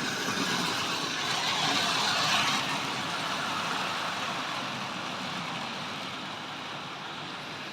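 Model train running along the track, a steady rumbling whirr of motor and wheels that grows loudest about two seconds in as it passes close, then slowly fades away.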